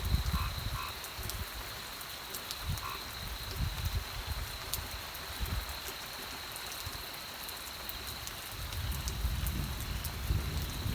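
Steady rain hiss with a constant high-pitched tone running through it and a few short calls early on. Low rumbling comes and goes beneath, swelling near the end.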